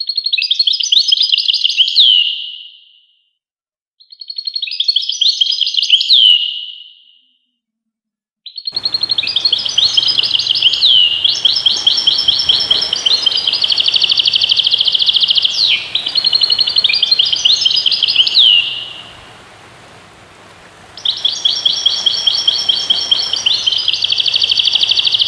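European goldfinch singing: rapid, high twittering phrases with liquid, downslurred notes. Two short phrases come first, then a long run of song, a brief pause, and a last phrase near the end.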